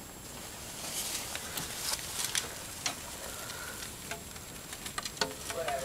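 Mice scrabbling through paper towel and shredded bedding in a cage: crackly rustling with scattered small ticks and scratches.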